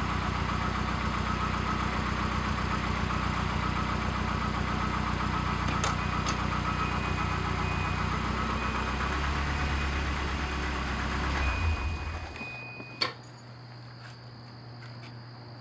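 Car engine idling steadily, then switched off about twelve seconds in, winding down to quiet; a single sharp click follows soon after.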